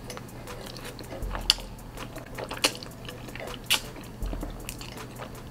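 Close-up eating sounds of a mouthful of spaghetti being chewed: wet mouth noises with three sharp smacks about a second apart.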